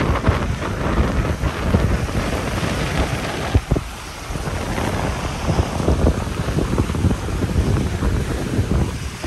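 Wind buffeting the microphone over the wash of waves on the shore, with one brief sharp knock about three and a half seconds in.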